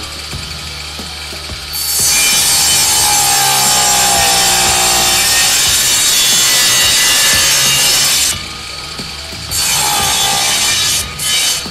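Homemade drill-powered reciprocating saw cutting a block of wood. The drill runs with a steady hum, then from about two seconds in a loud sawing sound starts. It stops around eight seconds, starts again about a second later, and breaks off briefly near the end.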